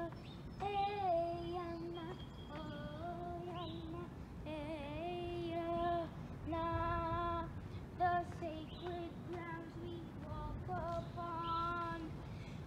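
A young girl singing a slow melody in held notes about a second long each, with short breaks between them.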